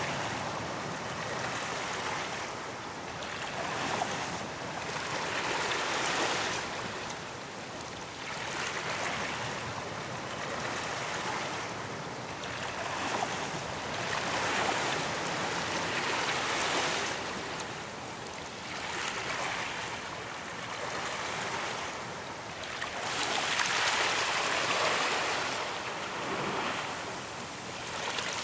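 Ocean waves breaking on a beach, a steady wash of surf that swells and recedes every few seconds, with the biggest swell near the end.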